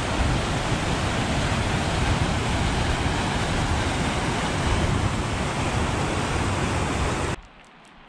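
Mountain creek whitewater rushing over boulders, a loud steady rush that cuts off suddenly near the end to a much quieter background.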